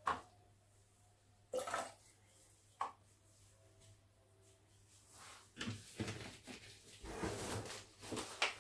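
A glass set down on a kitchen scale with a couple of sharp knocks, then a few seconds of clattering handling noise with some water sound, while distilled water is measured out into the glass.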